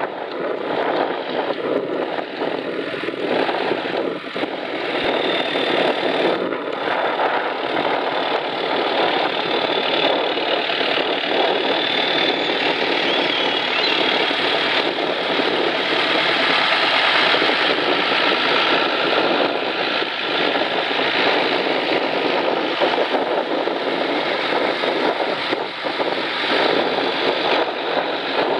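Engines of several vintage Ford farm tractors running steadily as they drive past one after another in a procession.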